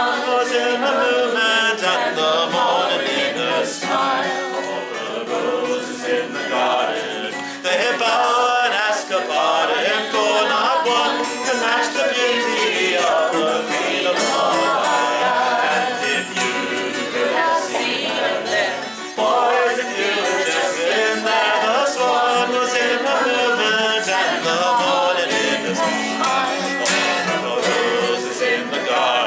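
A man singing a folk song while strumming a twelve-string acoustic guitar, with short dips in the music about seven seconds in and again around nineteen seconds.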